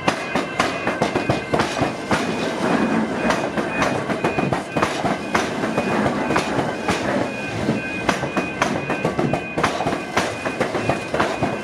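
Electric suburban train wheels clattering over a tram square, the diamond where tram tracks cross the railway: a dense, irregular run of metallic clicks and knocks over the rumble of the passing train.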